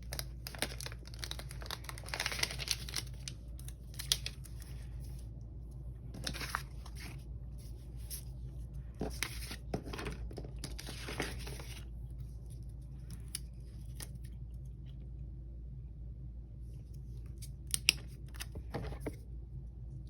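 Paper planner stickers being handled and peeled from their backing sheet: paper rustling and tearing in several short bursts, with a few light clicks near the end.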